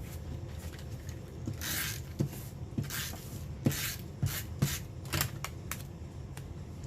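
Paper and cardstock being handled on a work surface: several short rustling scrapes and a run of light taps and clicks, busiest in the middle.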